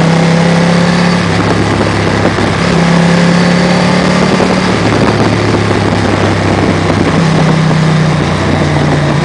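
Motorcycle engine running under way, its pitch dropping and rising again several times as the throttle is eased and reopened for the bends, over steady wind rush on the microphone.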